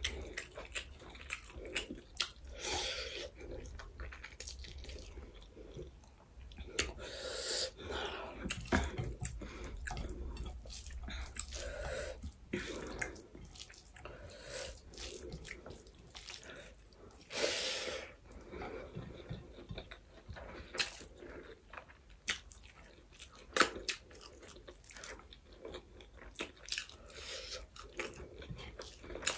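Close-miked mukbang eating sounds: a person chewing mouthfuls of rice and chicken gravy with wet smacks and mouth clicks, some crunching, and fingers mixing rice on a plate. There are two longer hiss-like sounds, about seven and seventeen seconds in.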